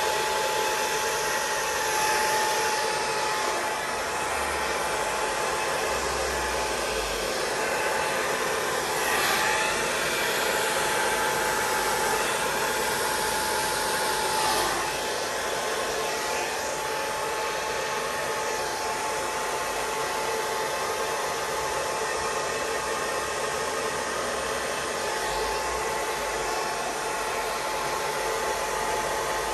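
Hand-held hair dryer blowing steadily on wet acrylic pour paint, a continuous rush of air with a thin steady whine running through it. The rush swells briefly a few times as the dryer is moved about.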